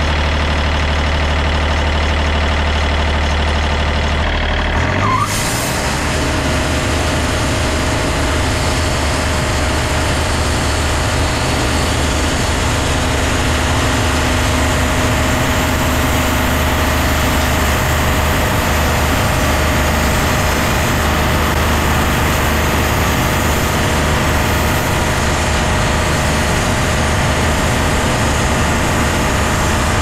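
Wood-Mizer band sawmill running steadily. About five seconds in, the sound changes as the band blade goes into a large black cherry log, and the mill then keeps sawing under load with a steady whine over the engine.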